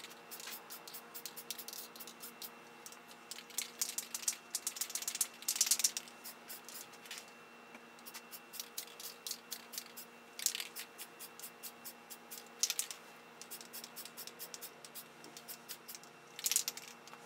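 Rust-Oleum aerosol spray paint can: the mixing ball rattles as the can is shaken, and there are several short hisses of spray, the first about five seconds in and the last near the end.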